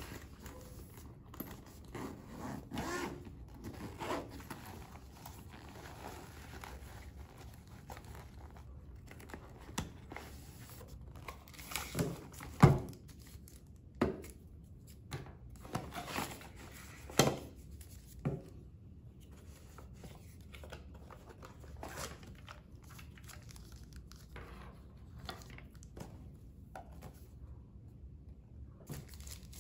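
Packaging being handled and unwrapped by hand: crinkling and tearing of the protective wrap around drone batteries and accessories. Several sharp clicks and knocks come in the middle, the loudest about twelve seconds in, as items are handled and set down on the table.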